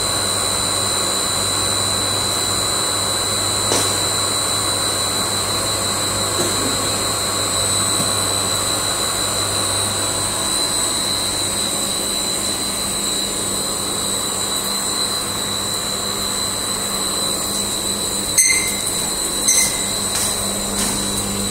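Blown-film plastic extrusion machine running: a steady mechanical drone with a constant high whine and a low hum. Two sharp clicks sound near the end.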